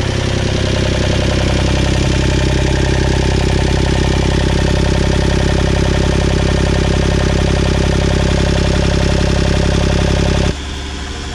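Yacht's inboard diesel engine running steadily, heard close up from the engine compartment. About ten seconds in the sound drops suddenly to a quieter level.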